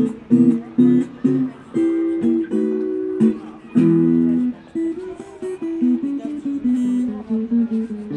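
Acoustic guitar played instrumentally, strummed chords with some single picked notes, each chord sharply attacked and left to ring.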